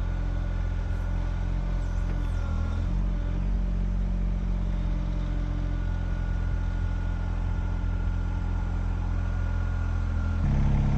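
Kymron XH20D mini-excavator engine running steadily under load while the machine lifts a large tree stump, with a thin high whine that drops out for a few seconds and returns. Near the end the engine note changes and gets louder.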